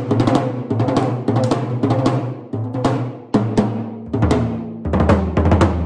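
Drum kit played hard with sticks in quick runs of strokes, mostly around the toms fitted with new Remo Skyntone heads, each hit ringing out with a low, pitched boom. The snare wires are switched off.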